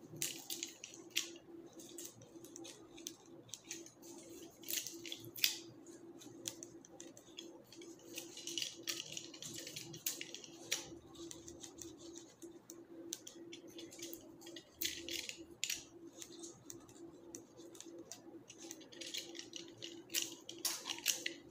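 Leaves and thorns being scraped off spray rose stems with a plastic thorn-stripping tool: irregular rustling, scraping strokes with small clicks. A steady low hum runs underneath.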